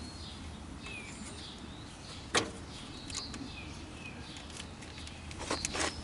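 Small birds chirping intermittently, with a sharp metallic click about two seconds in and a few more clicks near the end as hand tools work on the lawn tractor's solenoid mounting.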